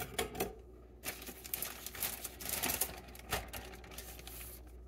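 A plastic zip-top bag crinkling as it is handled and opened, with rapid small clicks and rustles.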